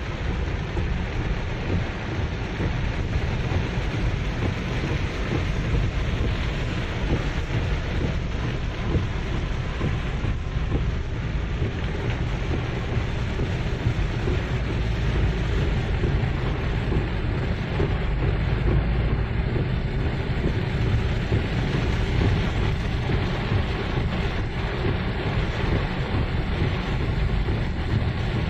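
Steady rumble of a vehicle driving slowly through heavy rain, with wind buffeting the microphone.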